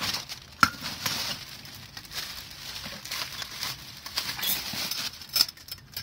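Clear plastic packaging bag rustling and crinkling as a wire bird feeder is unwrapped by hand, with a sharp knock about half a second in and another near the end.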